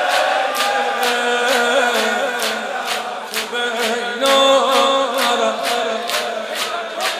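Shia Muharram noha: men's voices chanting a mourning lament over steady rhythmic chest-beating (sineh zani), the strikes coming about two and a half times a second.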